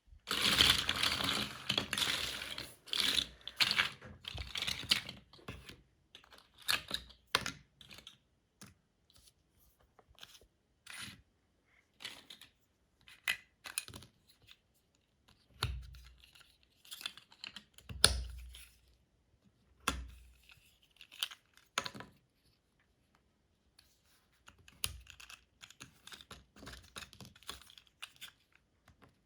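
Small plastic LEGO pieces rattling and being sifted for the first few seconds, then scattered sharp clicks of bricks handled and snapped together, with a few duller knocks in the middle.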